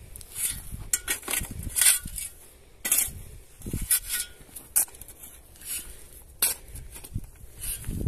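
Metal shovel scraping into dry, stony soil and tossing it back into a hole, in irregular strokes: the blade grating on the ground, small stones clinking, and loose dirt landing.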